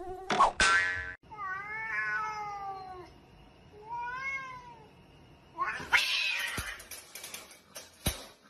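Cat meowing: a loud, shrill yowl just after the start, then two drawn-out meows that bend in pitch. About six seconds in comes a noisy scuffle with a rapid run of sharp clicks and rattles.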